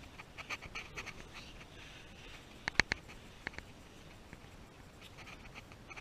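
Rustling and scraping of a person squeezing through a narrow sandstone slot canyon, with a few sharp clicks near the middle, the loudest about three seconds in.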